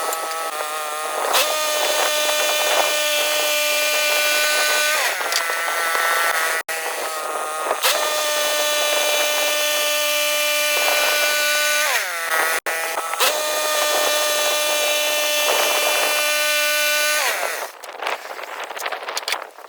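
Woodland Mills HM126 portable bandsaw mill running at speed, its gas engine and band blade cutting through a poplar log. The engine's pitch sags briefly a few times under load and picks back up, then near the end the mill slows and stops.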